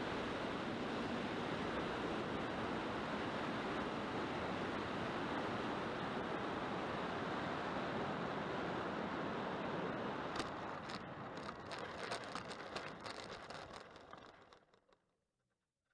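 Steady rush of wind over the onboard camera of a Flightline Spitfire 1600 mm electric RC plane on its landing approach. About ten seconds in this gives way to a run of knocks and rattles as the plane touches down and rolls over the rough grass field. The sound fades out as the plane slows to a stop.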